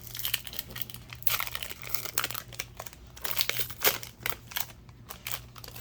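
Foil booster packs being torn open by hand: irregular crinkling and ripping of the foil wrappers, with a sharper rip about four seconds in.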